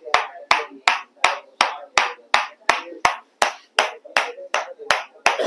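Steady rhythmic tapping: sharp knocks about three times a second, each dying away quickly.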